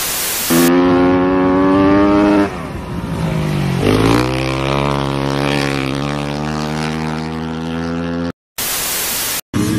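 A short burst of static hiss, then a dirt bike's engine running at steady high revs, dipping and climbing again about four seconds in. A second short burst of static comes near the end.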